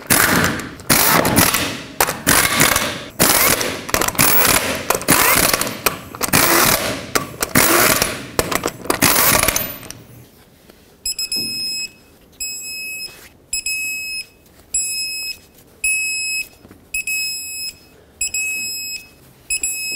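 Impact wrench running lug nuts onto a steel wheel in a series of short bursts. After a pause comes a run of high electronic beeps, about one a second.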